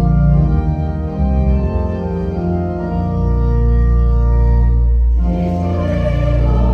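Organ music playing held chords over a deep bass. About five seconds in it moves to a new, fuller and brighter chord.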